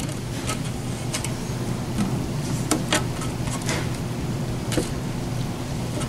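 Hands picking turkey meat off a metal tray and handling a glass: a scattering of small sharp clicks and taps over a steady low hum.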